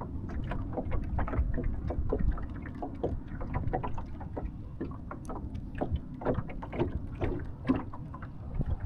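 Small waves slapping against the hull of a small sailing dinghy under way, irregular slaps several a second, over a low rumble of wind on the microphone.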